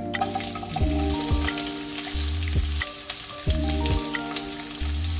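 Chopped onions hitting hot oil in a nonstick wok and sizzling, the frying hiss starting suddenly just after the start. Background music with steady held notes plays under it.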